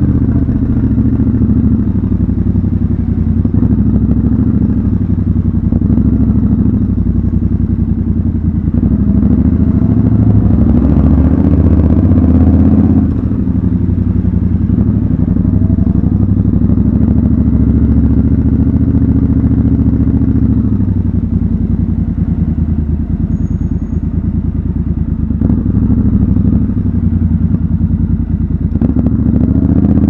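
Triumph Scrambler 1200 XC's 1200 cc parallel-twin engine running at low speed as the motorcycle rolls through an underground car park. The revs rise briefly about ten seconds in and drop off suddenly a few seconds later.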